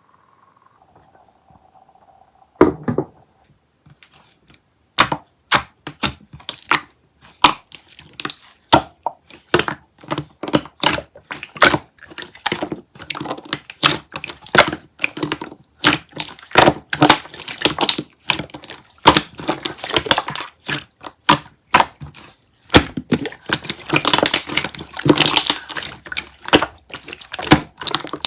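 Peach Mychew chewy candy and its wrapper being handled and eaten: sharp, irregular crackles and crinkles several times a second, with a denser run of crinkling near the end.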